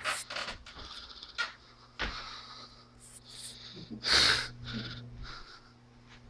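Handling noise of a camera being moved by hand: a string of short rubs, scrapes and bumps, the loudest a longer rub about four seconds in, over a faint steady low hum.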